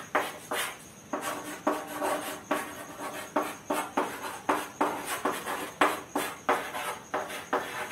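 Chalk writing on a blackboard: a quick series of taps and scrapes, about two to three strokes a second.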